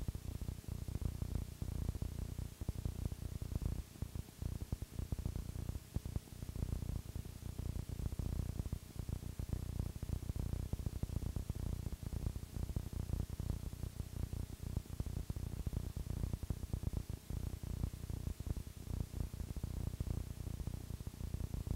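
Low, rumbling static and hum from the unrecorded audio track of an analog videotape, fluttering rapidly and irregularly in loudness.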